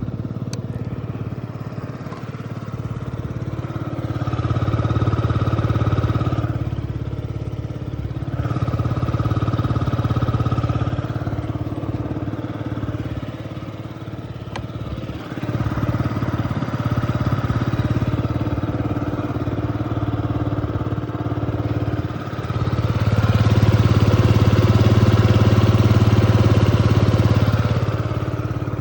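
Yamaha Jog's 50cc four-stroke, liquid-cooled scooter engine idling, with the throttle opened and held for a few seconds four times; the last rise near the end is the loudest.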